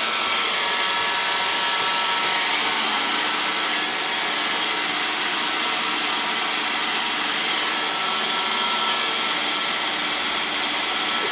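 iRobot Roomba robot vacuum cleaner running: a steady whir of its motor and brushes with a faint high hum.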